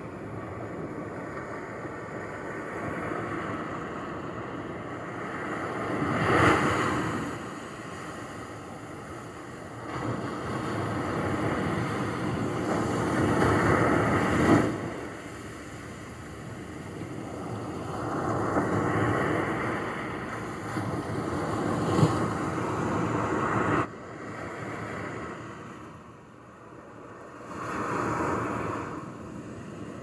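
Small ocean waves washing onto the shore, swelling and falling back in a slow, uneven rhythm, about five swells in half a minute. The level drops suddenly about three-quarters of the way through.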